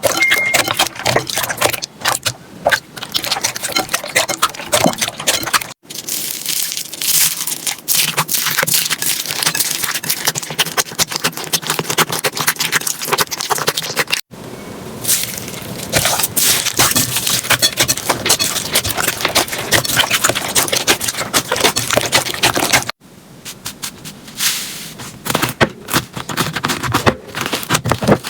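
Slime being squeezed and pressed by hand, making dense crackling and popping clicks. It comes in several short clips with abrupt cuts about 6, 14 and 23 seconds in.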